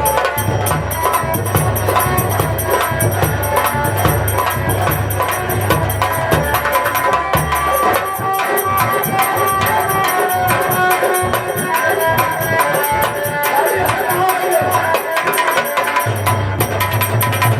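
Instrumental Indian folk music from a nautanki troupe's band: fast, dense hand-drumming with jingling percussion under a sustained melody line. The deep drum beat drops out about halfway through and comes back near the end.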